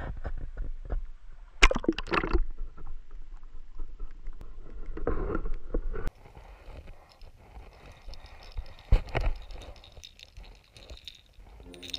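Water sloshing and splashing around a camera at the waterline, in irregular bursts. About halfway it cuts suddenly to a quieter, muffled underwater gurgle, with one more splash later on.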